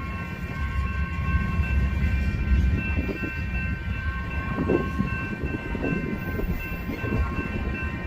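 Freight train rolling past: a heavy low rumble with irregular wheel knocks and clatter that grow from about three seconds in. Over it sits a steady chord of several high tones that holds unchanged.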